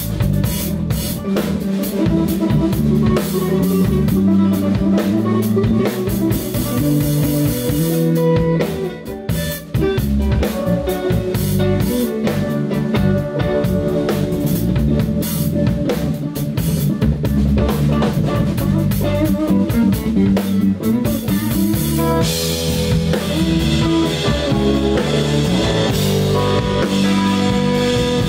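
Live instrumental rock played by electric guitar, electric bass and drum kit, with a brief break in the drive about nine seconds in and cymbals washing louder over the last few seconds.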